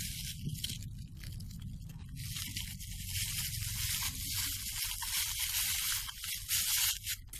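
Thin plastic shopping bag crinkling as it is scrunched up and stuffed into a tape-covered paper pouch, in several spells of rustling, the loudest near the end.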